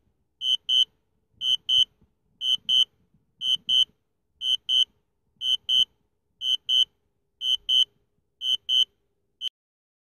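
Drone controller sounding its low-battery warning: short high beeps in pairs, about one pair a second. The flight battery is down to about a quarter and the drone is flying itself home.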